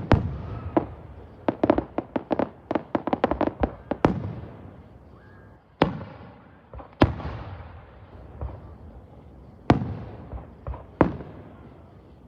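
Fireworks going off: a sharp bang, then a rapid string of crackling pops, then single bangs a second or more apart, each trailing off with an echo.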